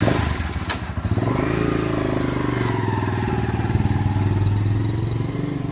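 Motorcycle engine running close by as the bike pulls away, its pitch rising a little about a second in and then holding steady, with a sharp click near the start.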